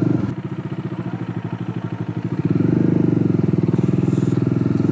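Bajaj Dominar's single-cylinder engine running at low revs under load, pulling the motorcycle up a steep dirt path. The throttle eases off about a third of a second in, and the engine gets louder again from about halfway as it is opened up.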